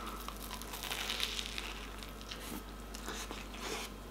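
Crunching as a bite is taken from a sandwich of crispy-coated fried chicken in pan-toasted milk bread, then chewing with a run of irregular crunches.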